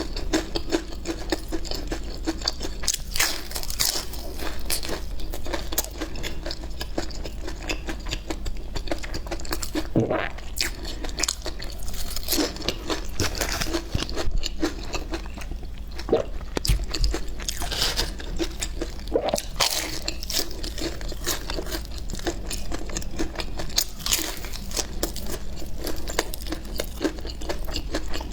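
Close-up eating of a crunchy pie: repeated crisp bites and crackling crunches as the crust is chewed, coming irregularly.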